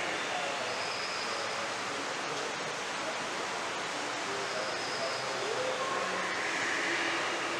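Steady rushing hiss of a public aquarium hall, from water circulation and air handling, with faint snatches of distant voices.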